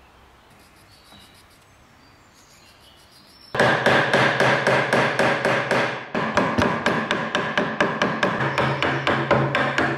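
Quiet for the first three and a half seconds, then a hammer starts rapidly striking a steel chisel as it chops a recess into wood, about six sharp, ringing taps a second.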